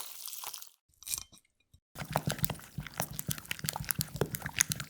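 Crunchy fried food being bitten and chewed close to the microphone: a few short crunches broken by brief gaps, then steady crunching from about two seconds in.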